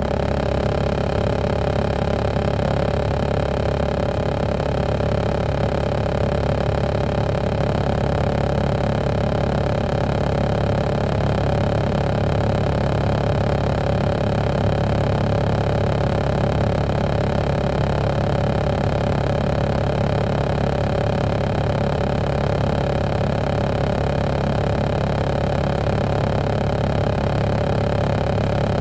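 Caterpillar C13 ACERT diesel engine of an MCI D4500CL coach running steadily, heard from inside the coach, an even hum that holds its pitch throughout.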